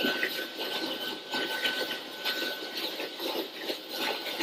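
Rushing wind and water noise from an electric speedboat, a converted Glastron, running at speed, with a thin steady high whine over the first couple of seconds. It is heard as a home video's soundtrack played over a hall's speakers.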